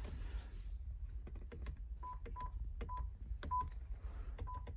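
Short single-pitch beeps from a Pioneer double-DIN head unit, about six in the last three seconds, each confirming a press of the Renault Master's steering-wheel remote as the volume is stepped. Faint clicks of the control buttons come between them.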